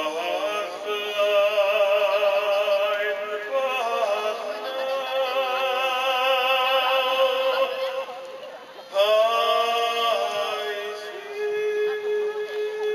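Music with an operatic-style voice holding long notes with vibrato. New notes come in about a third of the way through and again about two-thirds through.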